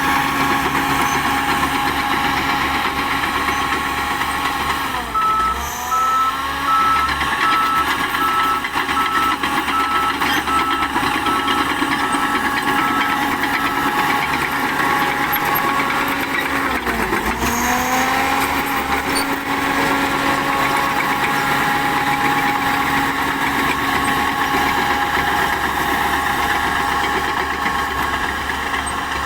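Shantui DH10B2 mini bulldozer's diesel engine running steadily. Twice its note sags and climbs back as the machine takes load. A reversing alarm beeps repeatedly after the first sag, stopping about halfway through.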